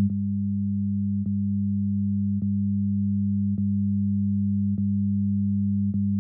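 Synthesized electronic drone of two steady low pure tones, with a short soft click about every 1.2 seconds.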